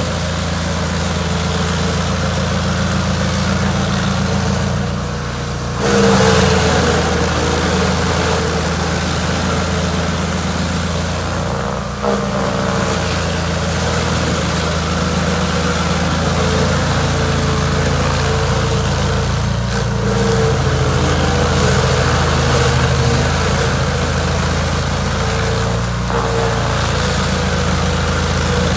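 Chainsaw engine running steadily. It dips briefly about five seconds in, then picks up again, with another short dip around twelve seconds.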